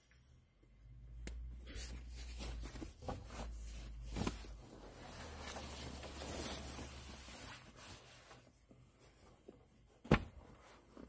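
Rustling and light clattering of gear being handled, with a run of small clicks and a sharp click about ten seconds in.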